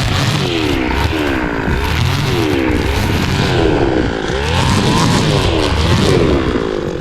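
Tractor engine running while working the field, its pitch rising and falling over and over, a little more than once a second.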